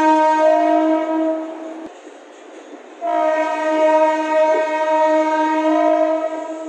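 DEMU train's horn sounding as the train pulls out: one long steady blast that fades out about a second and a half in, then a second long blast starting sharply about three seconds in and stopping near the end.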